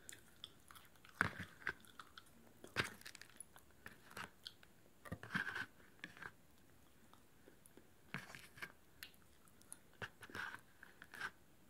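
Popcorn crunched and chewed close to the microphone, in irregular bursts of crisp crunches with a short pause partway through.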